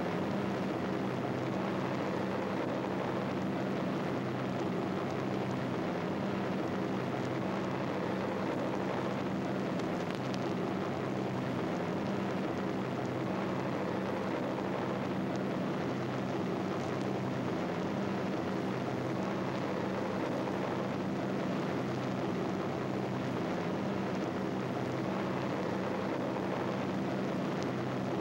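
Steady, unchanging drone of aircraft engines, several low tones holding at a constant pitch.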